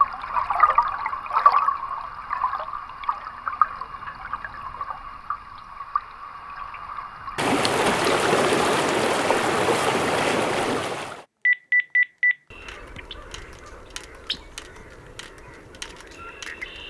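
A faint hum with scattered ticks, then about four seconds of loud, even hissing in the middle, cut off abruptly. After a short silence come four short, evenly spaced high beeps, then faint crackling clicks.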